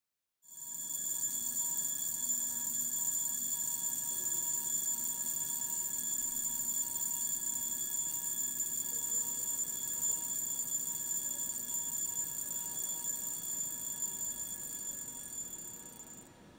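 Jaeger-LeCoultre Memovox mechanical alarm wristwatch ringing: its alarm hammer strikes the caseback so fast that it makes one continuous bright metallic buzz. The buzz starts about half a second in, holds steady, then fades and cuts off near the end.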